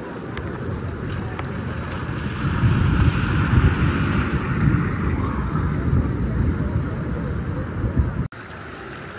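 Floodwater running over the pavement, with a car driving through it and splashing, loudest in the middle, and wind buffeting the microphone. The sound drops suddenly near the end.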